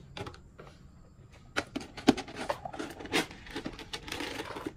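Dry cat kibble clattering in a plastic jar as a scoop is dug into it: a run of quick clicks about a second and a half in, thickening into a dense rattle near the end.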